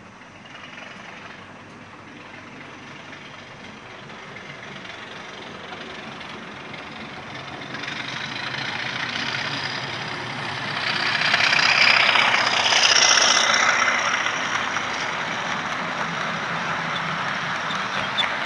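Diesel engine sound from a model locomotive's DCC sound decoder, mixed with the running noise of the model train on its track. It grows louder as the train approaches, is loudest about twelve seconds in, then holds a little lower as the locomotive passes.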